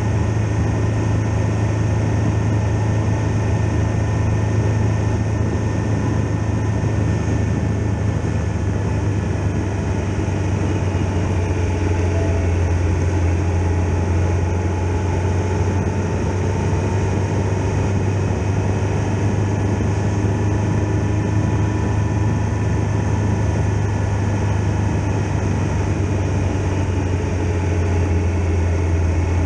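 Triumph Tiger Explorer XRx motorcycle's three-cylinder engine running at a steady cruising speed, with wind and road noise, the pitch drifting only slightly.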